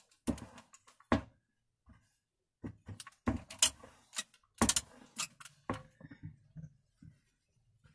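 Handling noise at a sewing table: fabric rustling with irregular small knocks and clicks as a patchwork block and sewing things are picked up and moved, the busiest stretch in the middle.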